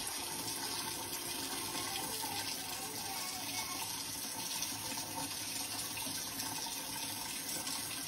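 Kitchen faucet running steadily, its thin stream falling into a stainless steel sink.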